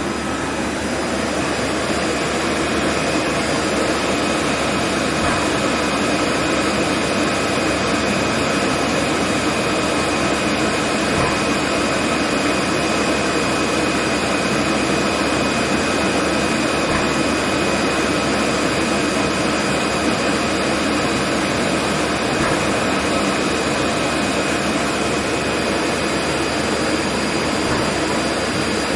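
1998 Okuma CNC lathe running under power: a steady mechanical whir, with a high whine that comes in a few seconds in and holds steady.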